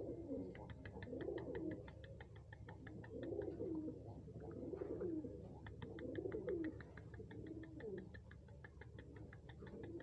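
Domestic pigeon cooing over and over, low gliding coos coming about once a second.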